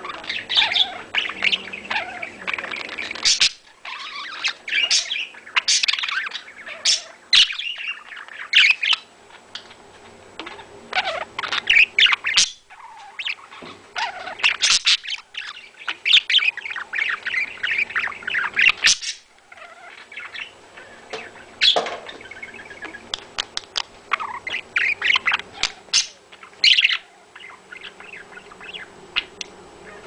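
Pet budgerigars warbling and chattering: a fast, jumbled run of chirps, clicks and squeaks in bursts broken by short pauses.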